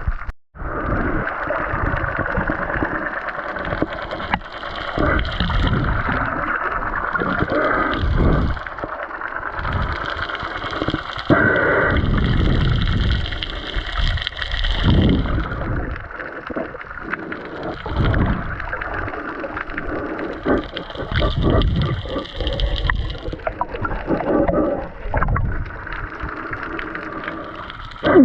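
Underwater sound from a camera in its waterproof housing during a spearfishing dive: muffled swishing and gurgling of water, with irregular low thumps as the housing moves.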